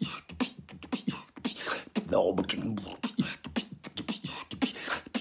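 A man beatboxing: quick drum sounds made with the mouth, low thumps under hissing and clicking strokes in a fast, unbroken rhythm, with a few short pitched vocal notes mixed in.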